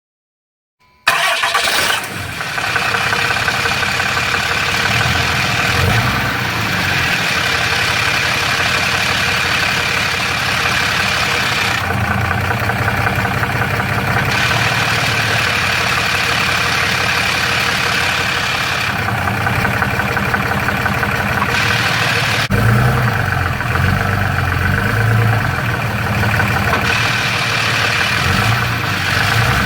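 Dodge Ram's 6.7L Cummins diesel running with a rattle like marbles in a can from its DPC triple disc torque converter, a noise believed normal for the triple disc design. The sound begins abruptly about a second in, and there is a single sharp click near the three-quarter mark.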